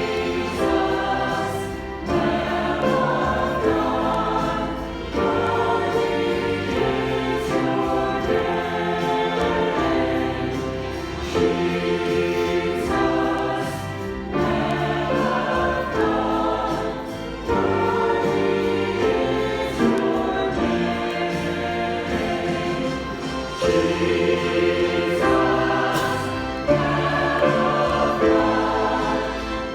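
A church choir singing a hymn together, with instrumental accompaniment underneath.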